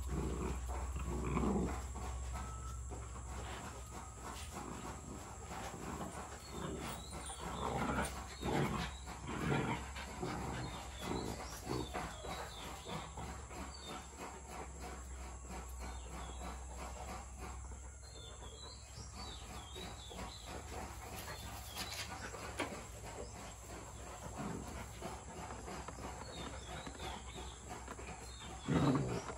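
Rottweiler puppy and its Rottweiler mother play-fighting over a cloth: short, irregular bursts of dog vocalizing with scuffling, busiest about eight to ten seconds in and again near the end.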